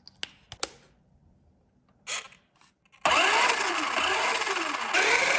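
A few sharp clicks as the Traxxas Ford Raptor RC truck is switched on. About three seconds in, its Velineon 3500 kV brushless motor and drivetrain start to whir loudly, the pitch rising and falling over and over with the throttle.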